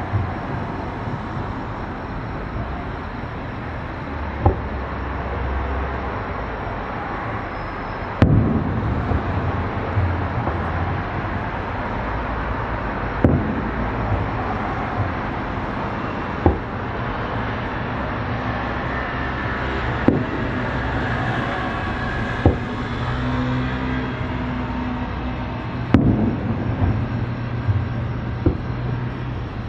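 Aerial firework shells bursting, a sharp boom every few seconds, about nine in all, over a steady low rumble of background noise.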